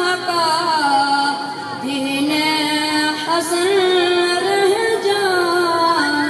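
A boy singing a naat solo into a microphone: a single voice with long held, gently wavering melodic notes.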